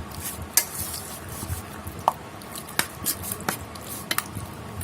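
Raw chicken pieces coated in a wet spice-and-oil marinade being mixed in a bowl: soft wet squelching with scattered light clicks at irregular moments.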